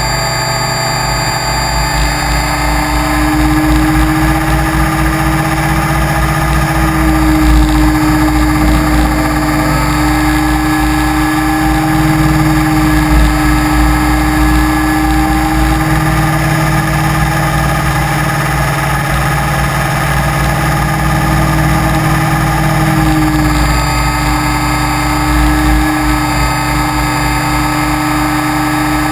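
FPV model aircraft's motor and propeller heard from on board: a steady whine that steps up in pitch about three seconds in and drops back near the end, as the throttle changes. Wind rumbles on the microphone underneath.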